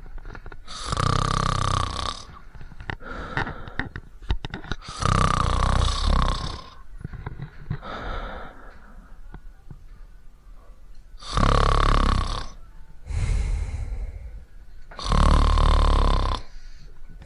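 Loud pretend snoring, five long snores with pauses between them, as if someone were asleep. A few faint clicks fall between the second and third snores.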